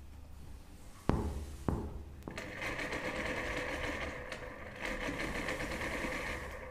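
Singer sewing machine, played as an instrument, stitching at a fast, steady rate for about four seconds, easing off briefly partway through. It is preceded by two sharp knocks about half a second apart.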